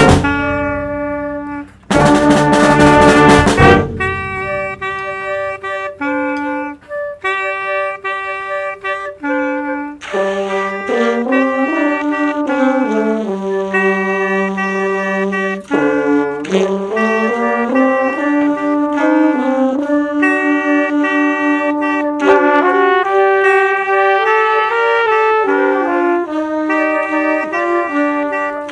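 A small wind band of flute, clarinet, alto saxophone, trumpet, French horn, baritone horn and tuba, with bass drum and snare drum, playing concert band music. It opens with drum strikes and a loud full-band hit about two seconds in, then settles into held chords with moving lines in the winds.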